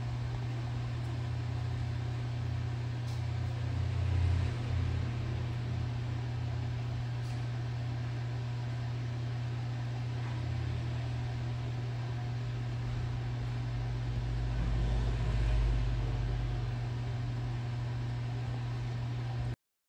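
Steady low mechanical hum of reef aquarium pumps with an even hiss over it. A deeper rumble swells briefly about four seconds in and again near the end, and the sound cuts off abruptly just before the end.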